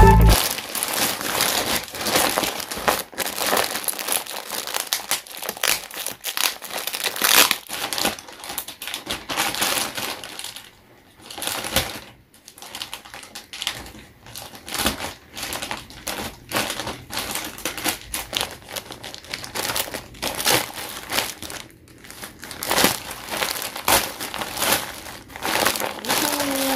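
Plastic courier bag and plastic wrapping crinkling and rustling on and off as they are handled and pulled open by hand, with a quieter stretch about eleven to fourteen seconds in.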